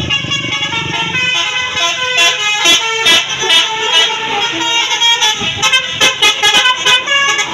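Indonesian tour bus 'telolet' multi-tone horn playing a quick tune of short notes that step up and down in pitch, starting about a second and a half in, over the low running of the bus.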